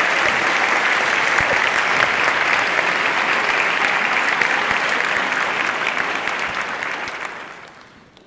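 Audience applauding: many hands clapping at once, fading away near the end.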